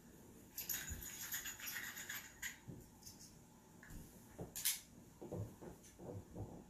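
Faint handling noises from setting out a scent-discrimination article: a rustling rub early on, then soft barefoot steps and a couple of sharp clicks as the article is carried onto the rug and set down among the others.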